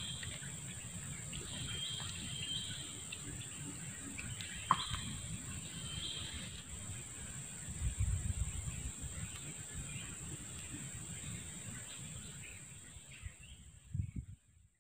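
Quiet outdoor ambience at a reedy swamp lake: a steady high-pitched drone with a few short bird calls in the first half and a single click, low rumbles on the microphone around the middle, fading out near the end.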